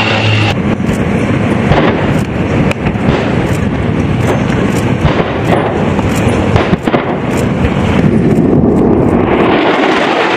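A C-130J Hercules turboprop hum cuts off about half a second in. Then come pyrotechnic explosions: a rapid, irregular string of blasts and bangs over a continuous rumble, thinning out and giving way to a rising hiss near the end.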